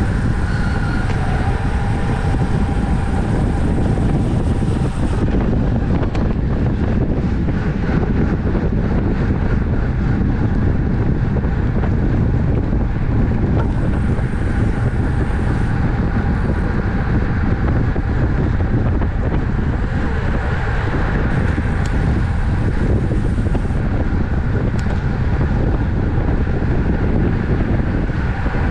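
Steady wind noise buffeting the microphone of a camera carried on a racing bicycle riding at speed.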